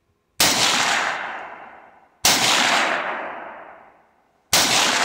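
Three rifle shots from a retro-style Armalite rifle, about two seconds apart, each followed by a long echo that fades away over a second or so.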